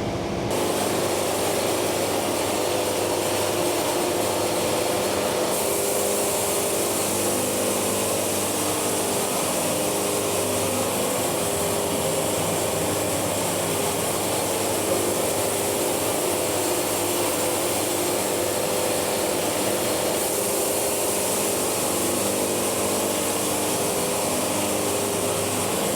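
Wood-Mizer portable band sawmill running: a steady engine drone under the hiss of the band blade sawing boards off a log. The high hiss grows stronger about five seconds in and eases off near the end.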